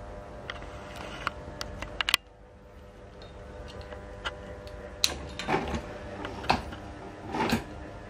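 Niga mini ceiling fans running with a steady electric motor buzz, the background buzz coming from a Niga FC05-50. Over it come scattered sharp clicks in the first two seconds and several louder knocks and rustles in the second half, with a brief dip in level just after two seconds.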